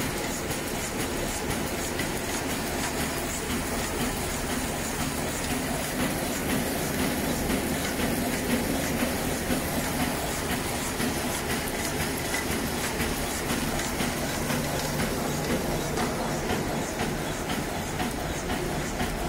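An automatic cutlery flow-wrap packing machine running, with a steady mechanical hum and rapid, even clicking.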